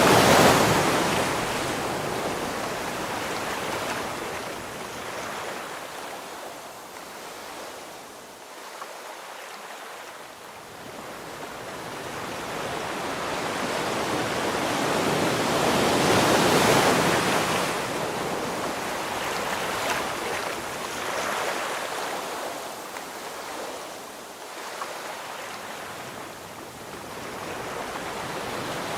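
Ocean waves breaking on a shore: surf noise that swells as a wave breaks at the start and again about halfway through, ebbs between, and builds again near the end.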